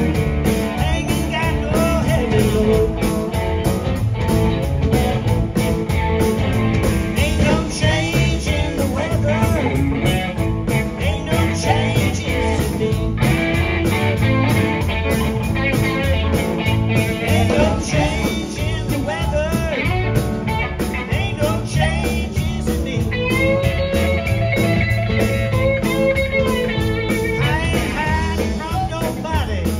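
Live band playing a blues-rock song, with a pedal steel guitar playing gliding, sliding notes over electric guitar, bass guitar and drums.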